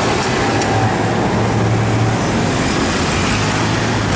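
Steady city street traffic noise, with the low hum of a large engine running.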